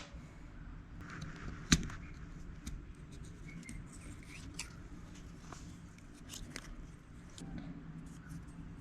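Small metal clicks and taps of power steering pump parts and hand tools being handled while an old O-ring is worked out of the pump housing, with one sharper click about two seconds in.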